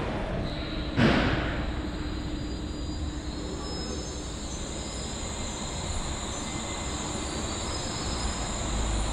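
Wuppertal Schwebebahn suspended train at the station, its steel-wheeled running gear on the overhead rail giving a steady mechanical rumble with faint steady tones. A sharp, loud burst comes about a second in.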